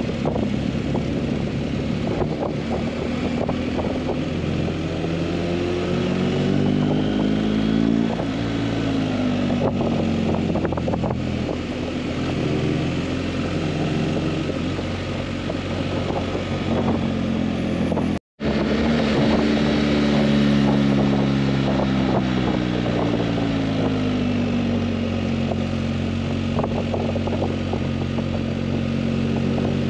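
Motorcycle engine running at road speed with wind noise, its pitch sweeping up and down and then holding steady near the end. The sound cuts out completely for a moment about eighteen seconds in.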